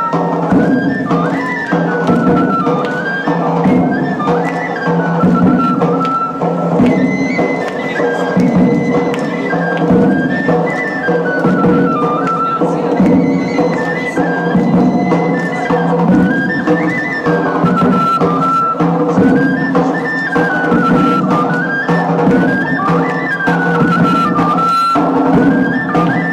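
Traditional folk dance music: a wind instrument plays a winding, ornamented melody over a steady drone.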